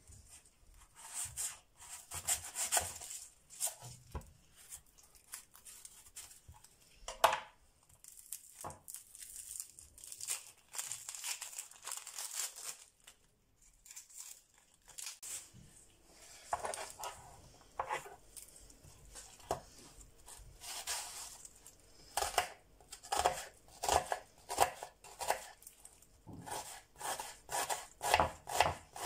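Dry onion skin peeled and torn away by hand, rustling and crackling, with a sharp knock about seven seconds in. In the second half a kitchen knife chops the onion on a plastic cutting board in short, even strokes.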